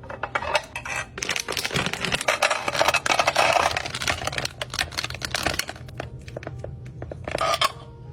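Rapid clattering and clicking of hard kitchen items being handled and set down during a restock, thickest in the middle and thinning out toward the end, with a brief flurry near the end.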